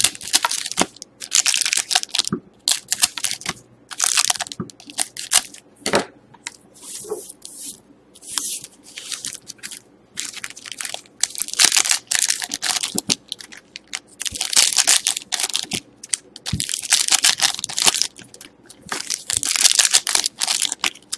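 Foil trading-card pack wrappers crinkling and tearing open in the hands, in a long run of irregular bursts, some lasting about a second.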